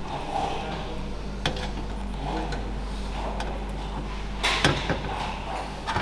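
A few scattered sharp knocks over a steady low hum in a workshop. The loudest is a pair of knocks about four and a half seconds in, with single ones about a second and a half in and near the end.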